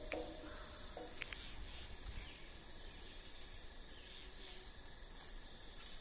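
Faint steady insect chirring, like crickets, with two short clicks a little over a second in.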